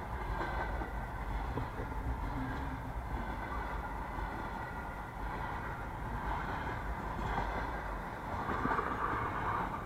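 Freight train rolling past on the track: a steady rumble of wheels on rail, with the deep rumble easing about eight seconds in.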